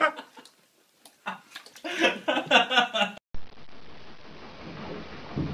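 A person's voice for about three seconds, then after a sudden cut a steady background hiss.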